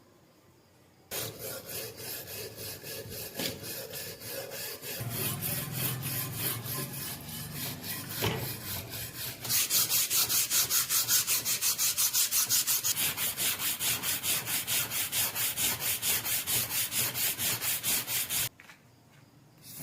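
Rusty steel knife blade being scrubbed by hand with an abrasive in quick back-and-forth strokes, several a second, to take off rust. About halfway through the strokes become louder and more even, then they stop shortly before the end.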